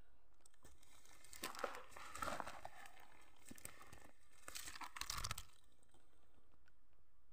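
Crinkling, crackly rustling close to the microphone, in two bursts: one about a second and a half in and another around five seconds in.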